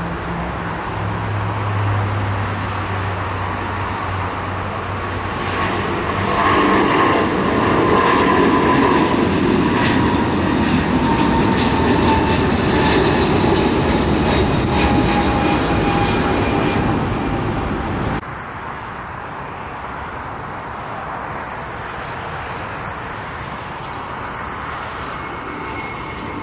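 Jet airliner engines at takeoff thrust: a United Boeing 777's roar builds about six seconds in and holds loud, with a whine that falls in pitch as the jet climbs past. About two-thirds through the sound cuts abruptly to a quieter, steady jet roar from a climbing JetBlue Airbus A320-family jet.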